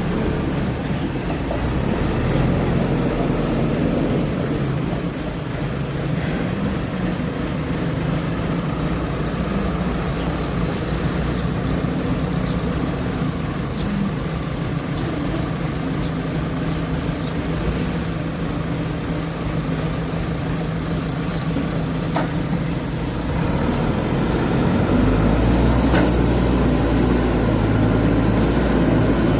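Backhoe loader's diesel engine running steadily as the machine is worked, getting louder about 25 seconds in, with brief high-pitched squeals near the end.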